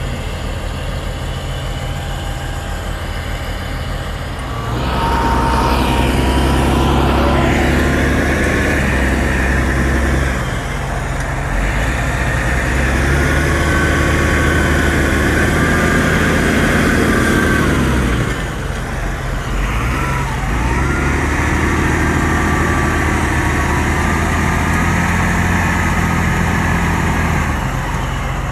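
Massey Ferguson tractor's diesel engine labouring under load while the tractor is stuck in mud with a grain drill behind it. It rises in three long spells of higher revs, each several seconds, easing back between them.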